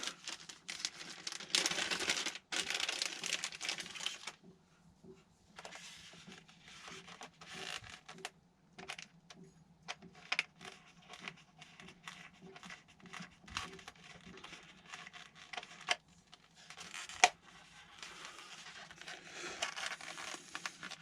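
A small screwdriver driving a screw into a foam RC plane's plastic wing mount, with rustling and scraping of foam and plastic and a run of small clicks. There is one sharper click about two-thirds of the way in.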